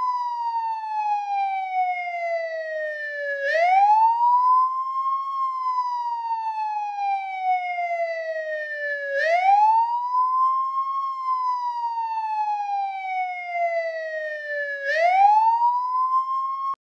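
American police car siren on the wail setting: the pitch climbs quickly, then falls slowly, repeating about every six seconds with three climbs in all. It cuts off abruptly near the end.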